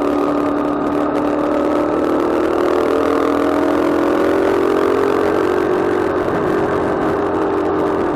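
Motorcycle engine running steadily under way, its pitch drifting slowly up and down with road speed.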